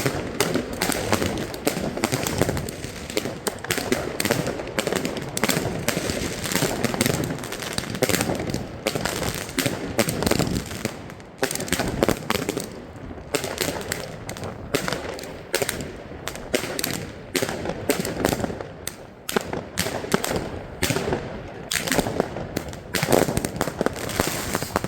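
Fireworks and firecrackers going off in dense, irregular volleys of bangs and crackling, one report after another with barely a gap.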